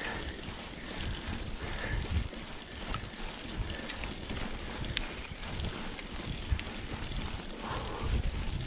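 Mountain bike rolling along a dirt singletrack: wind buffeting the microphone with a low rumble, tyres running over dirt, and a few small clicks and rattles from the bike.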